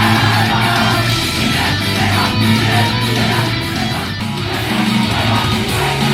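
Upbeat J-pop idol song with strummed electric guitar and a steady bass line, from a live stage performance.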